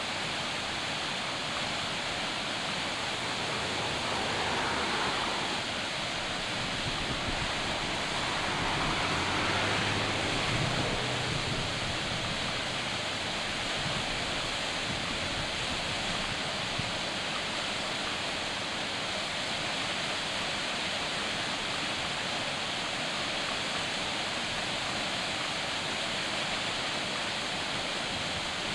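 Looking Glass Falls, a waterfall, rushing steadily as an even wash of falling water, swelling a little twice.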